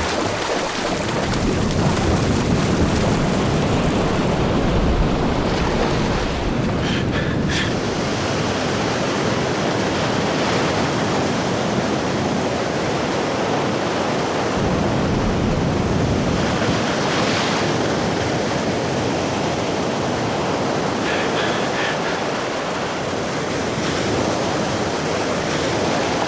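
Ocean surf: waves breaking and washing in a continuous rush that swells and eases.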